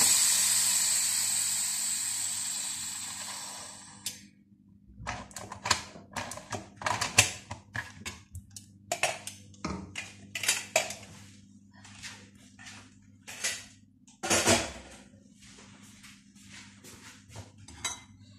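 Steam hissing out of a pressure cooker's release valve, loud at first and fading over about four seconds before it cuts off. Then the metal lid is unlocked and lifted off, with a run of clicks, knocks and clatters.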